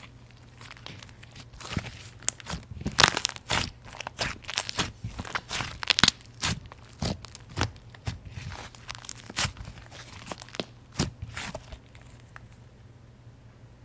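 Fluffy white slime being stretched, pressed and squeezed by hand, giving irregular crackles and pops that thin out near the end.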